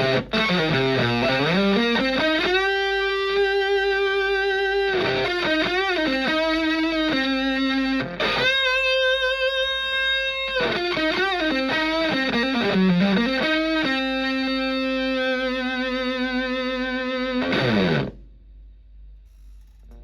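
Electric guitar on a Stratocaster's bridge pickup, played through a Tone Bender MkI-style fuzz pedal with its attack set halfway into a Twin Reverb-type amp. Long fuzzy single notes are held with string bends and vibrato. The playing stops about 18 seconds in, leaving faint amp hum.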